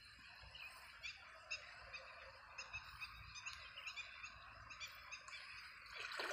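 Faint outdoor ambience of many short, high chirps from small animals calling. Near the end comes a brief splash of water as someone wades through the pond.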